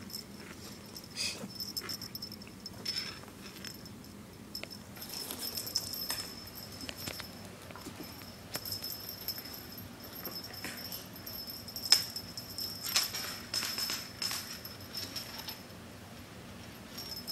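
Kitten playing with a string wand toy on a hardwood floor: irregular light scratches, taps and skitters of claws and toy, with faint rattling and jingling.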